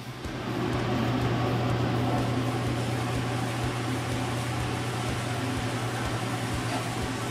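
Floor-drying fan (air mover) running steadily with a low hum, blowing on freshly pre-filled drywall seams so the setting compound hardens.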